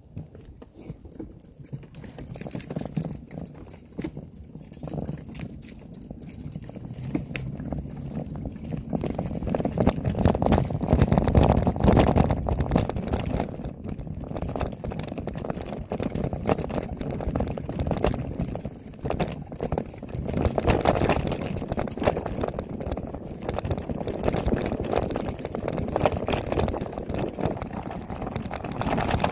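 Wind buffeting the microphone while a bicycle's tyres and frame rattle over a dirt trail. It builds from near quiet to loud over the first ten seconds as speed picks up, then stays loud with frequent knocks.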